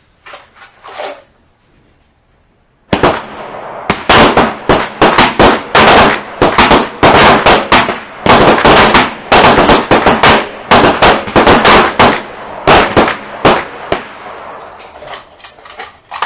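Pistol fire from several shooters on the line at once: a dense run of overlapping shots starting about three seconds in, continuing for about ten seconds, then thinning out near the end. This is a timed string of six rounds each, fired standing without support within 12 seconds.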